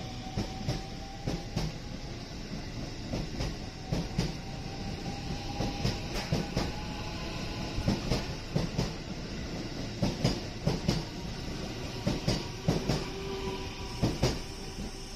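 Local electric train pulling out along the platform. Its motor whine slowly rises in pitch as it gathers speed, and the wheels clack over the rail joints in quick groups, louder in the second half.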